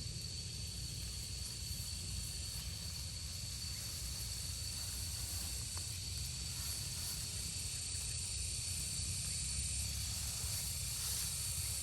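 Steady outdoor background hiss with a constant high-pitched tone and a low rumble underneath, unchanging throughout.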